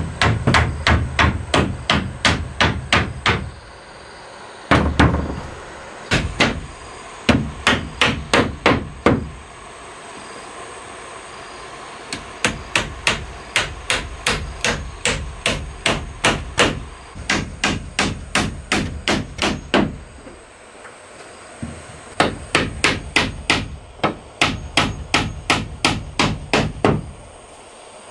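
A hammer driving nails into the bottom rail of a wooden plank wall: runs of quick, sharp blows, about three to four a second, broken by short pauses.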